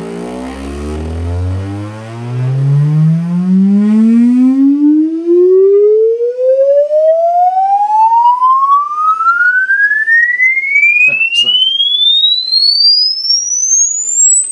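A pure test tone sweeping steadily upward in pitch, from a deep hum to a high whistle, played from a phone through the speakers of a Lasonic TRC-918 boombox. The low start sounds rougher, with extra overtones that fade as the pitch climbs, and there is a short click about eleven seconds in.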